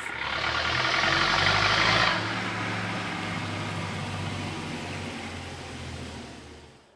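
Farm tractor engine running steadily in the background. A loud rushing noise lies over it for about the first two seconds, and the engine sound dies away near the end.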